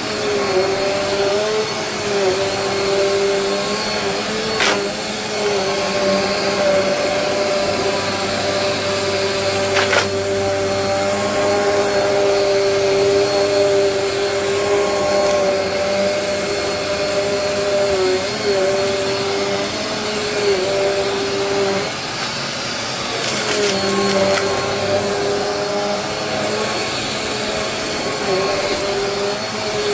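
Vacmaster upright vacuum cleaner running over thick carpet, its motor hum steady with brief dips in pitch as it is pushed back and forth. A few sharp clicks of mess-test debris are sucked up.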